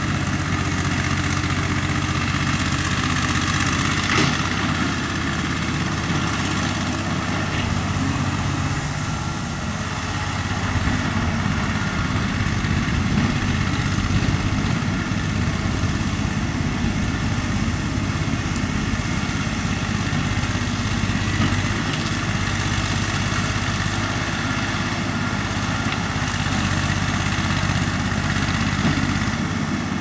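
John Deere 8875 skid steer's diesel engine running steadily as the machine drives across the field.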